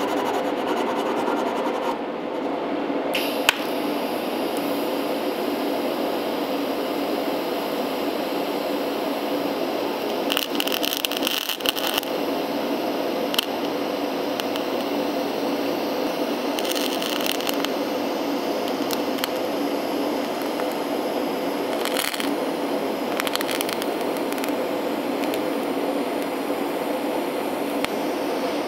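A Scotch-Brite pad scrubs a brass radiator port for the first couple of seconds. Then, with a click, a DC TIG welder's arc strikes and runs with a steady hiss, brazing the unused flathead port closed with silicon bronze filler. A few brief crackles come in the middle, and the arc cuts off at the very end.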